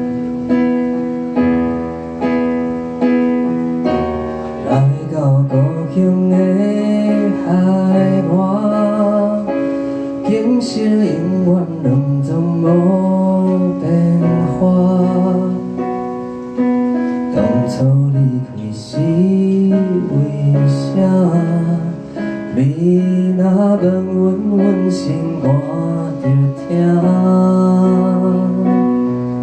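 A man singing a song into a microphone over piano chords played on a Korg keyboard. The first few seconds are keyboard alone, and the voice comes in about four seconds in.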